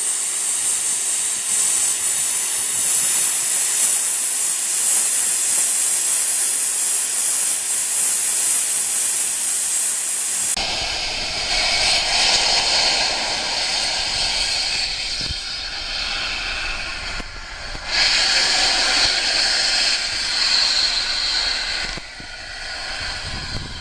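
Steam hissing from the LNER Peppercorn A1 locomotive 60163 Tornado: a steady high-pitched hiss that changes abruptly about ten seconds in to a lower, fuller hiss that dips and surges again a couple of times.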